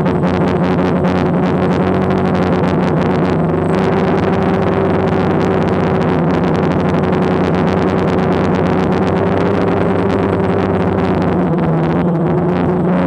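DJI Phantom quadcopter's electric motors and propellers buzzing in flight, picked up by the onboard camera: a steady hum whose pitch drifts slightly with throttle, over constant rushing air noise.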